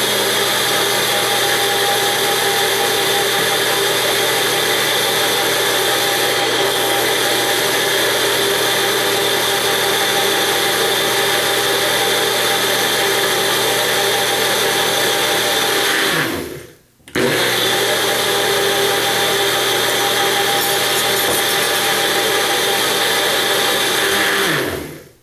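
Nutribullet blender motor running at full speed, blending soaked cashews and water into cashew milk. It winds down about 16 seconds in, starts again within a second, and winds down again near the end.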